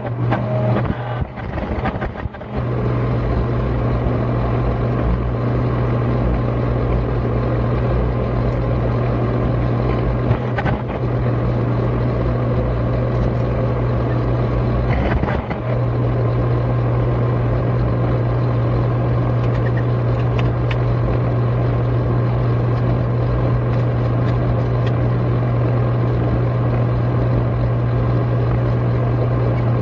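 Steady low drone of a hydraulic forging press's power unit running. In the first couple of seconds there are a few knocks and changes in the sound as hot steel is squeezed between the dies and handled.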